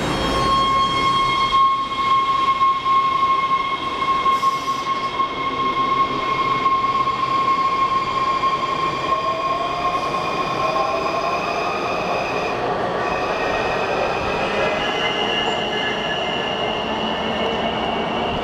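WMATA Metrorail train of Rohr 1000-series and Breda 3000-series cars pulling out of the station. A steady high electrical tone sounds for the first half, then the traction motors' whine rises in pitch as the train accelerates away, over running wheel and rail noise.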